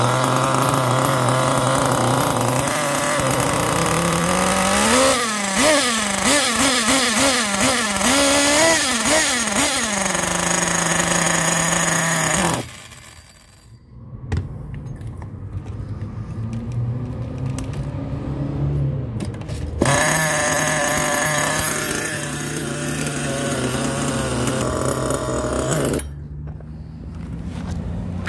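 Small single-cylinder two-stroke .28 nitro glow engine in an RC buggy, running on 16% nitro fuel. The pitch swings up and down several times as the throttle is blipped with the wheels off the ground. Its sound drops away sharply about halfway through, then the engine is running again for the rest of the time.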